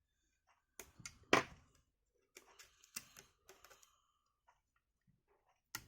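Small hand-handling clicks and taps on a phone and its parts while double-sided tape is applied, with a patch of light crackly rustling in the middle. The sharpest click comes about a second and a half in.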